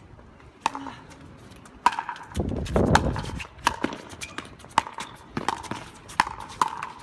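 Pickleball rally: a string of sharp, hollow pops as paddles strike the plastic ball and it bounces on the hard court. Wind rumbles on the microphone from about two seconds in.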